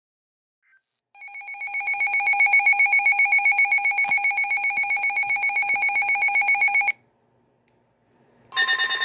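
Weather alert radio's electronic alarm: a loud, rapidly pulsing tone that starts about a second in and cuts off suddenly near the seventh second, announcing an incoming alert. A second alert tone begins just before the end.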